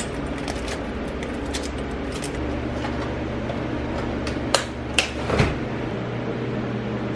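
Small metal hardware clinking and knocking a few times, three sharp clicks between about four and a half and five and a half seconds in, over a steady low hum.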